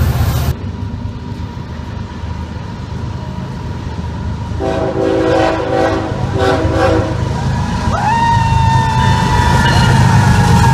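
BNSF diesel freight train approaching and sounding its horn in a few short blasts, then passing close by with a building rumble of engines and wheels. A high steady whine joins in near the end as the locomotives go by.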